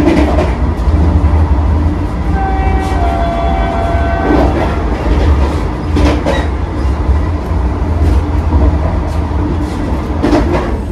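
Vande Bharat Express train running at speed: a steady low rumble with a few sharp clicks from the wheels. About two seconds in, a train horn sounds for about two seconds, its pitch dropping a step midway.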